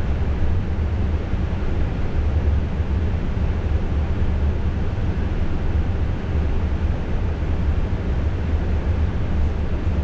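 Steady flight-deck noise of a Boeing 777 freighter on approach: a constant low rumble of airflow and engines that does not change.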